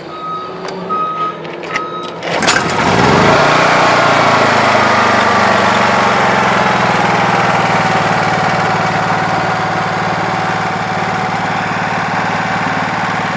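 Honda EM5000SX generator's single-cylinder gasoline engine being pull-started: it starts right up about two and a half seconds in, runs up, and settles into steady running. A whine falls in pitch for a few seconds and then holds steady as the engine levels off. Before the start, a reversing alarm beeps steadily in the background.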